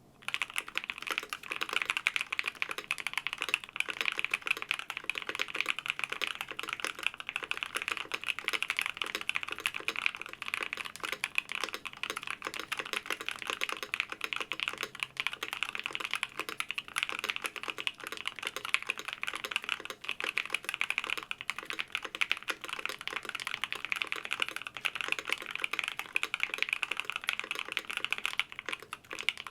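Continuous fast typing on a Vega 65 custom mechanical keyboard with an aluminium plate, plate and case foam, Gateron Black Ink V2 linear switches that have been filmed and lubed with 205g0, and Cannonkeys keycaps. The keystrokes come as a dense, even stream of clicks.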